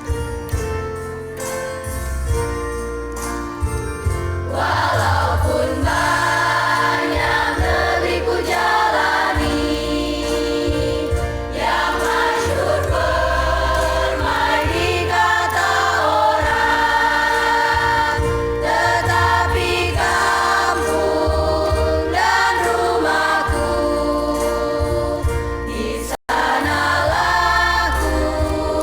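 A choir singing with instrumental accompaniment. The voices enter about four seconds in after a short instrumental opening, and the sound drops out for a moment near the end.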